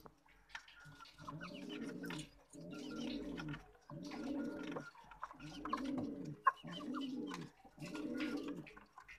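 Domestic pigeon cooing over and over: six low, rolling coos, each just under a second long and a little over a second apart.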